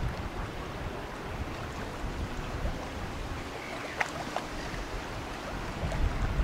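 Wind buffeting the microphone, an uneven low rumble over a faint hiss, with a single sharp click about four seconds in.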